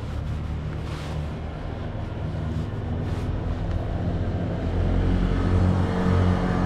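An engine running steadily with a low hum, growing louder from about halfway through.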